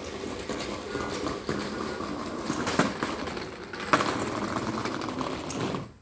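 Leafy branches of a small tree rustling and shaking as they are pulled by hand, with two sharp snaps of stems or twigs. The rustling stops abruptly near the end.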